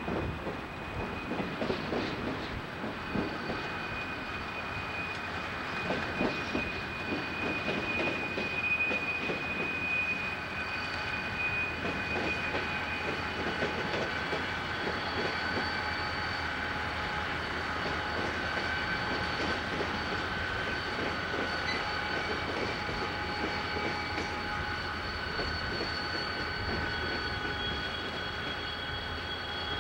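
Union Pacific freight train rolling past: steel wheels knocking and clacking over the rail joints, busiest in the first half, under a steady high-pitched wheel squeal at several pitches that holds throughout.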